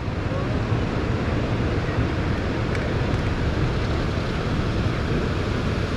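Steady wind and water noise on open water from a fishing boat, over a low, even hum.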